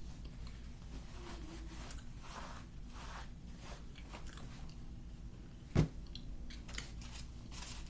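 Someone biting and chewing crunchy oven-baked starch, with crisp crackling crunches throughout and one sharp thump about six seconds in.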